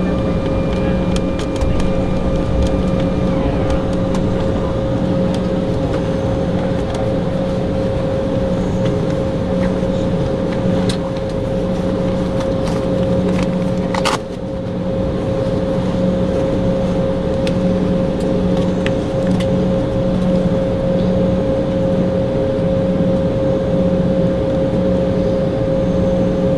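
Cabin noise of an Embraer E190 taxiing, its two CF34 turbofans at idle: a steady whine over a low hum that throbs in a slow, even rhythm. Light clicks and rattles come through now and then, with one sharp click about halfway through.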